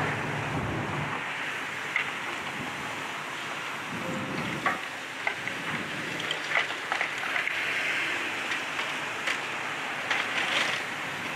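Demolition debris crackling and clattering as bits of brick and wood fall from a building being torn apart by an excavator's grapple, over a steady hiss. The excavator's engine hum drops away about a second in.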